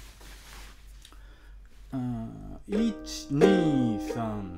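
Ukulele strumming chords, starting about two seconds in: a pared-down jazz accompaniment strum with fewer strokes.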